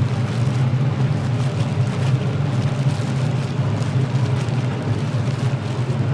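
A steady, loud low mechanical hum with an even hiss above it and faint scattered ticks.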